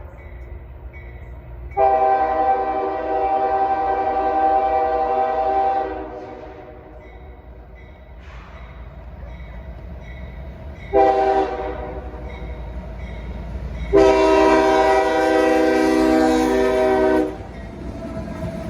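CSX freight locomotive's air horn sounding a long blast, a short blast, then another long blast, over the low rumble of the passing train.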